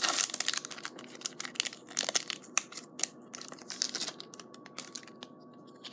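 Foil booster-pack wrapper being torn open and crinkled, loudest in the first couple of seconds, then sparser crackles that die away near the end.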